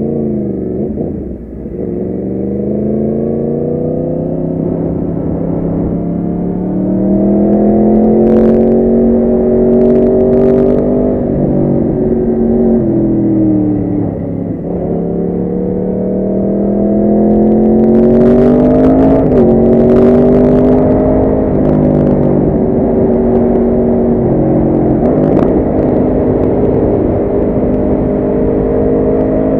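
Motorcycle engine under hard riding. The revs climb for long stretches, then drop in several quick steps about halfway through, then climb again, with further drops and rises near the end. A few sharp clicks sound over the engine.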